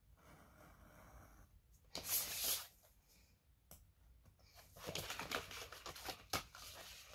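Faint handling of paper and cardboard during craft work: a louder rustle about two seconds in, then a run of crackling scrapes with a couple of sharp clicks.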